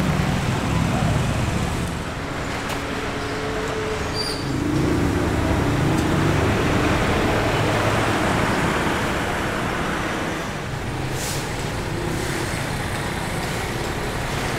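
Steady road-traffic noise with vehicle engines running.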